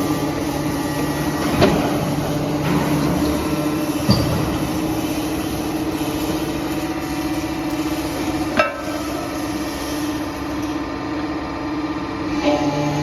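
Hydraulic power unit of a 160-ton scrap metal baler running with a steady hum on a no-load idle test, with three knocks, the sharpest about two-thirds of the way in. A deeper tone joins the hum near the end.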